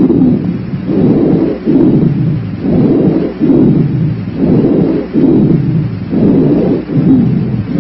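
Rhonchi, an added (adventitious) breath sound, heard through a stethoscope over the chest. It is a low-pitched, snoring, rumbling sound that swells and fades in a steady rhythm about once a second.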